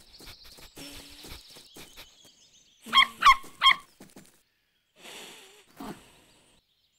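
Three quick yaps from a cartoon puppy about three seconds in, over faint bird chirps that die away after the first second or two.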